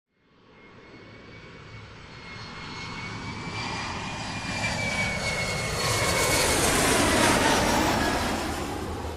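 Airplane flying over: a steady engine noise with a high whine that grows louder from silence, is loudest about seven seconds in, and drops in pitch as it passes, then starts to fade.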